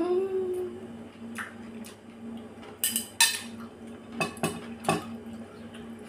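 Metal chopsticks clinking against a ceramic bowl: a handful of sharp clinks, the loudest about three and five seconds in. It opens with a brief closed-mouth 'mm' while chewing.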